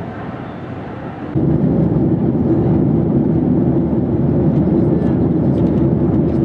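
Steady aircraft noise at an airport. About a second and a half in it jumps to a much louder, steady low rumble.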